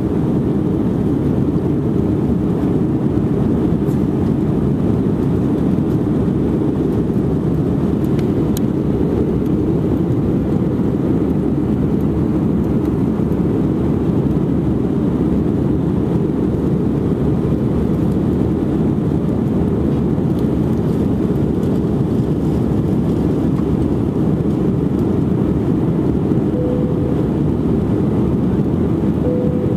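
Steady rumble of engine and airflow noise inside the cabin of an Airbus A319 in its climb, most of it deep and low. Near the end a faint brief tone sounds twice over it.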